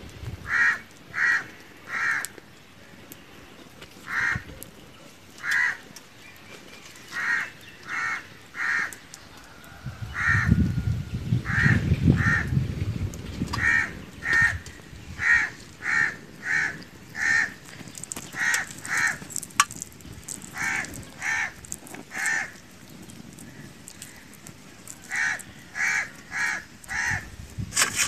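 A bird calling over and over, short loud calls mostly in quick runs of two to four, with a low rumble for a few seconds around the middle.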